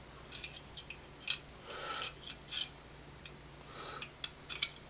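Small metal parts of a Makarov .22 LR conversion kit being handled and fitted together: a string of light metallic clicks, bunched near the end, with a couple of soft sliding rubs between them.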